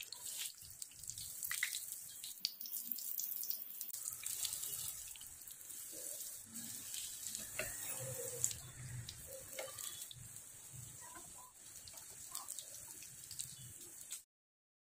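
Bread-crumbed chicken and bread patties sizzling and crackling as they shallow-fry in hot oil in a pan, with a steady hiss and irregular pops. It cuts off suddenly near the end.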